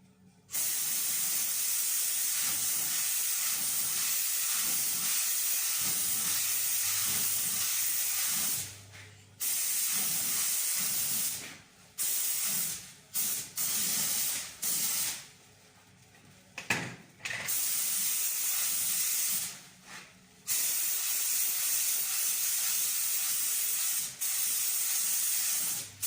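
Compressed-air spray gun hissing in long bursts as the trigger is pulled and released, with short gaps between passes, spraying UV primer.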